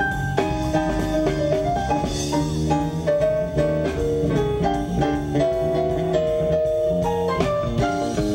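Live blues band playing a blues in B flat: electronic keyboard picking out a melodic line over drums and bass.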